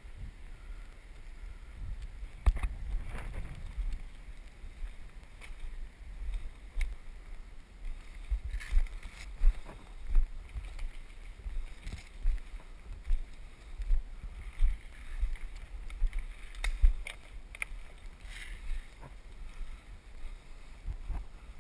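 Footsteps through leafy forest undergrowth, with leaves and twigs crackling now and then, over a low, uneven rumble of wind and handling noise on a body-worn camera's microphone.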